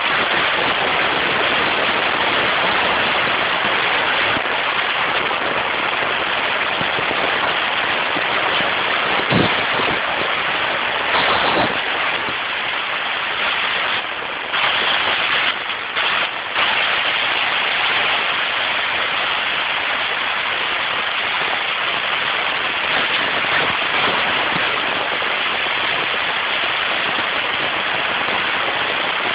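Steady rush of wind and road noise from a car driving at speed, with no clear engine note above it and a couple of brief knocks partway through.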